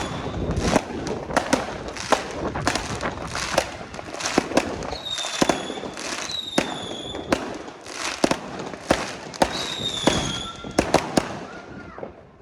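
Fireworks going off in quick succession: a rapid run of sharp bangs and crackling, with a few short high whistles among them. The barrage thins out and fades near the end.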